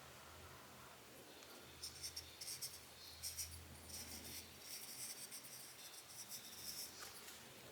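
Cotton swab rubbing over lens glass in quick, short scratchy strokes, starting about two seconds in and stopping shortly before the end: the lens element being wiped clean.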